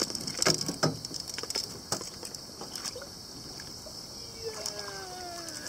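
A hooked giant snakehead splashing and thrashing at the surface beside a boat, with a few sharp splashes in the first two seconds, over a steady high insect drone. Near the end a drawn-out call slides down in pitch.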